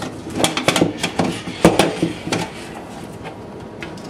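Wooden flanging dies being popped off a freshly flanged aluminum wing rib: a quick series of knocks and clatters in the first couple of seconds, then quieter handling.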